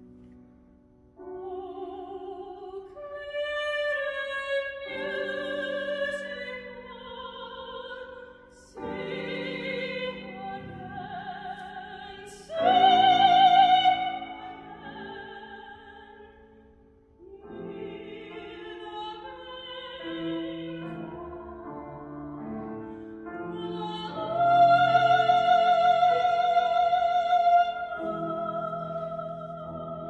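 A woman sings a classical art song with strong vibrato to grand piano accompaniment. The song comes in several phrases with brief breaks between them, swelling to loud held high notes about halfway through and again near the end.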